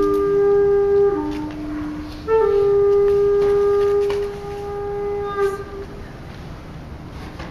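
A wind instrument plays a slow melody of long held notes. One note steps down to a lower note about a second in. After a short pause a single note is held for about three seconds, then fades out, leaving only faint room noise near the end.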